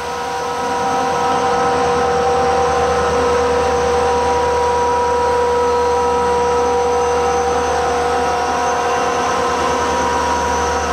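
CSX diesel-electric freight locomotives passing close by, their engines running with a steady whine over a low rumble.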